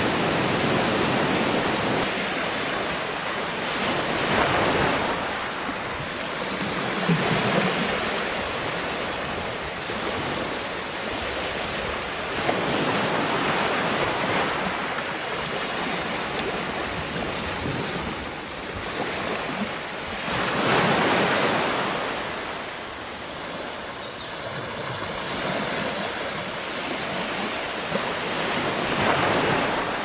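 Ocean surf: waves breaking and washing up the shore, a continuous rush of water that swells and eases every few seconds.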